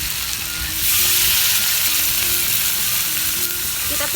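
Stir-fry of salted fish, tempeh and eggplant sizzling in a pan. The sizzle gets louder and sharper about a second in, as a little water is added to the hot pan.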